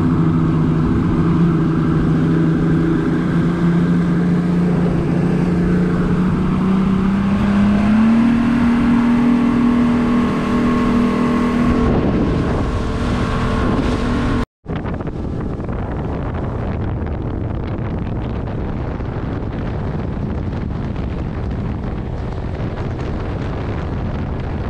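Yamaha 200 outboard motor driving a boat under way, its note climbing about 7 to 8 seconds in as it speeds up. After a brief break about halfway, a steadier rush of wind and water over the engine as the boat cruises.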